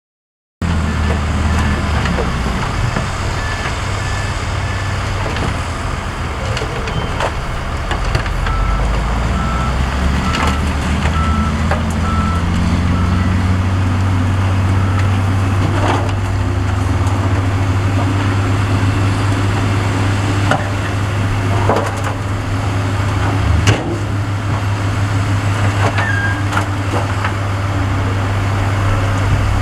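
Heavy diesel construction machinery running loud and steady, the engine revving up about a third of the way in, with a reversing alarm beeping in runs and a few sharp clanks of the working equipment.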